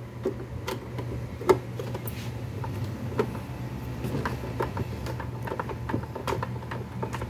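Screwdriver turning a screw into the plastic base of an electric juicer, with many small irregular clicks and creaks from the screw and the housing, and one sharper click about one and a half seconds in. A steady low hum runs underneath.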